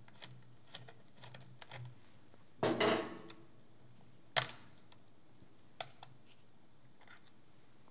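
Small clicks and scrapes of a screwdriver and fingers prying at the battery compartment cover of a small metal-cased portable TV, with a brief louder rasp about three seconds in and a sharp click about a second later.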